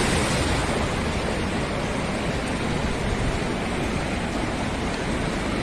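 Floodwater of the overflowing Arhavi River rushing, a steady, unbroken noise.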